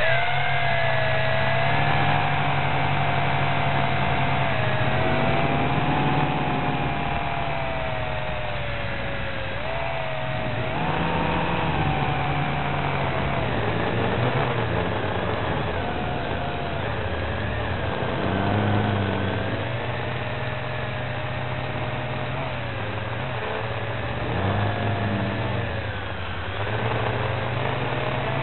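Small JJRC FPV quadcopter's motors and propellers whining, the pitch rising and falling as the throttle changes, over a steady low hum and hiss.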